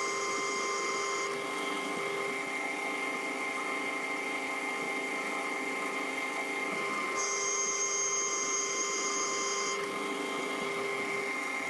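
Metal lathe running while a threading bar single-point cuts an internal thread in a metal nut: a steady gear and motor hum, with a high-pitched cutting sound on two passes, one at the start and another about seven seconds in.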